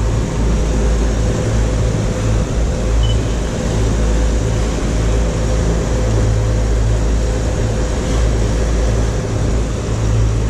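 Cabin cruiser running at speed: a steady engine drone with a constant loud rush of wind and water.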